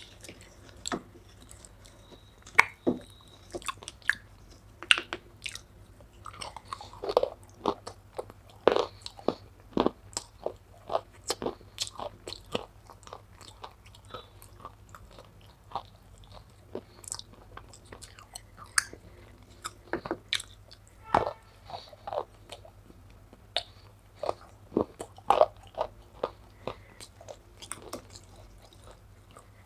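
Wet, sticky smacks and clicks of a thick grey clay paste being squished by hand and chewed up close to a clip-on microphone, in an irregular run of sharp sounds.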